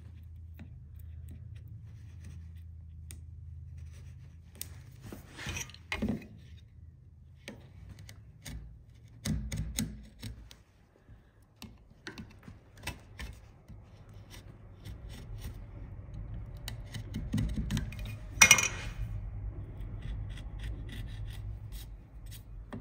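Chisel and marking blade scraping and scoring across softwood, with scattered small clicks and taps of the steel on the wood, cutting a shallow trench that will guide the saw. One louder scrape comes near the end.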